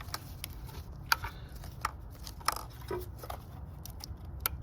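Scattered sharp plastic clicks and snaps as the locking tabs on the ignition coil plug connectors of a Ford Focus 1.0 EcoBoost are unclipped and the plugs are pulled off the coils.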